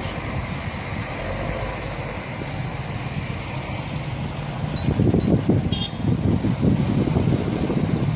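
Outdoor noise with a steady rumble like road traffic or engines, growing into heavier, irregular low rumbling from about five seconds in.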